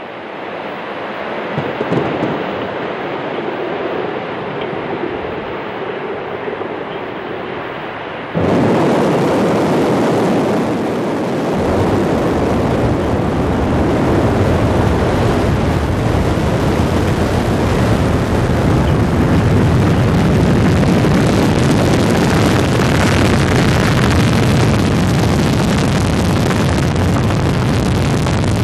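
Soyuz rocket engines firing at launch: a rushing noise that builds over the first seconds, then jumps suddenly, about eight seconds in, to a much louder, steady rocket roar with a deep rumble that holds as the rocket climbs.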